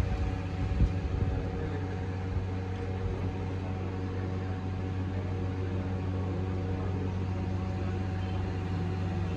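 Steady machine hum at a constant pitch, with new engine oil pouring from a plastic jug through a funnel into the engine's filler opening.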